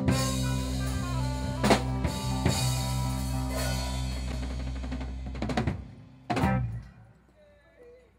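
Live jazz band with drum kit holding a final sustained chord under a few drum hits, then a last drum-and-cymbal hit about six and a half seconds in that rings out and fades to near silence: the end of the tune.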